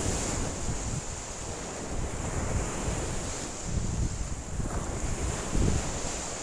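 Wind-driven lake waves washing and breaking steadily, with strong wind buffeting the microphone in uneven gusts; the strongest gust comes about five and a half seconds in.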